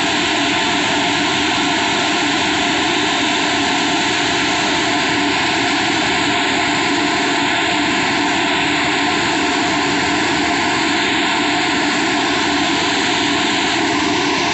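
Steady, loud mechanical roar of heavy construction machinery running without a break, an even engine-like drone with no change in level.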